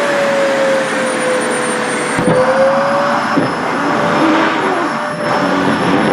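Sharp EC-KP7F-A vacuum cleaner running as it sucks at a cloth dress, a steady rushing of air with a motor hum and a faint high whine. The motor pitch sags and climbs back about two seconds in, then settles, as the load on the suction changes.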